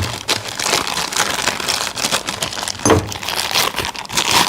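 Plastic wrapping crinkling and crackling as a heavy impact socket is unwrapped and handled, with a dull thump about three seconds in.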